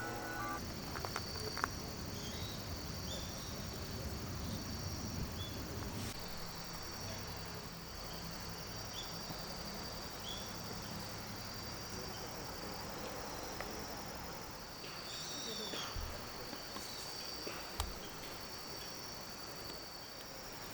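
Crickets and other insects chirping steadily in a high-pitched chorus, with short chirps repeating about once a second and a few scattered clicks.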